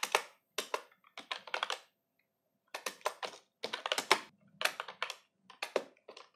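Typing on a computer keyboard: short bursts of quick key clicks separated by brief pauses, the longest about two seconds in.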